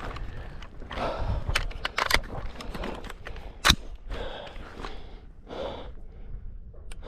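Footsteps and movement of a shooter on a course of fire, with several sharp cracks. One crack, about halfway through, is much louder than the rest.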